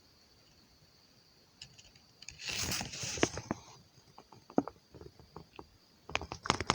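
Handling noise: a short rustle about two and a half seconds in, followed by scattered clicks and knocks, after which the sound cuts off abruptly.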